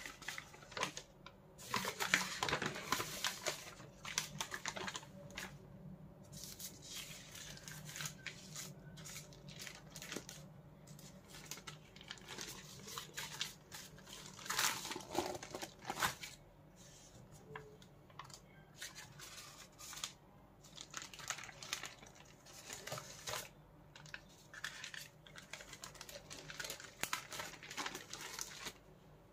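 Paper food wrapping being unfolded and pulled open by hand, crinkling and rustling in irregular bursts. The loudest stretches come a couple of seconds in and again about halfway through.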